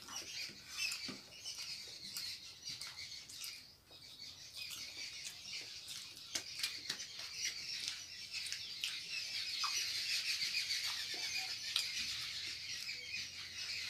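Close-miked eating sounds: wet chewing and lip-smacking as rice and fish are eaten by hand, heard as many small irregular clicks over a steady high-pitched twittering.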